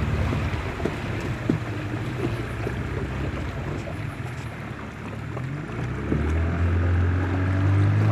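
A river boat's outboard motor throttled back, with water rushing and a few knocks, then revving back up in rising pitch about six seconds in.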